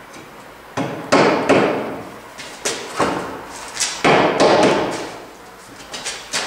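Wooden framing posts being knocked and fitted into place against the shaft frame: a run of irregular loud knocks and bangs, several in quick pairs, each ringing briefly in the bare room.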